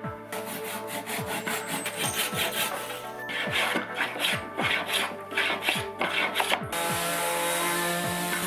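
Hand tool working wood in quick, even back-and-forth strokes, like sawing or rasping. About seven seconds in it gives way to a steady rushing noise. Background music plays underneath.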